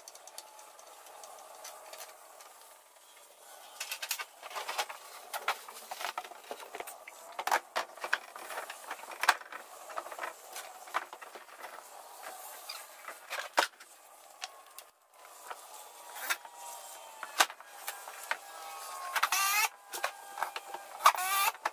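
Irregular knocks and scrapes as a sheet of OSB is handled and set against the wall studs, then a cordless drill whirring in two short runs near the end, driving screws to hold the board.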